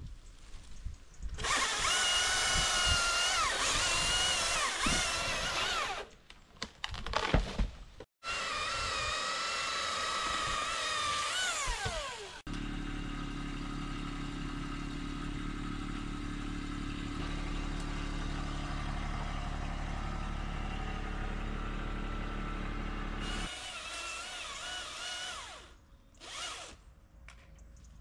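Battery chainsaw cutting cherry wood in two long runs, its motor whine sagging under load and gliding down as it spins down after the second cut. A steady low engine hum follows for about ten seconds, then the saw runs briefly once more near the end.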